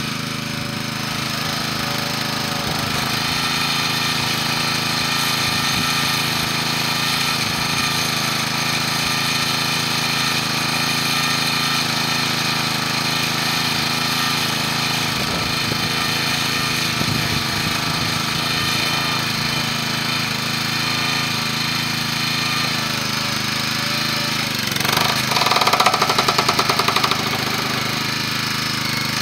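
Small gas engine of a hydraulic log splitter running steadily while firewood is split. Near the end, a louder rattling stretch lasts about two seconds.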